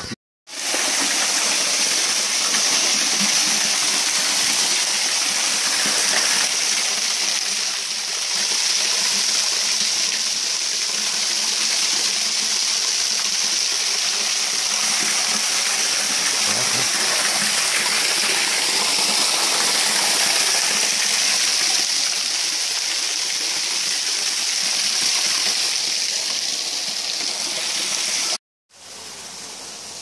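Small waterfall pouring off a rock ledge into a shallow stony pool: a loud, steady rush and splash of falling water. It cuts off abruptly near the end.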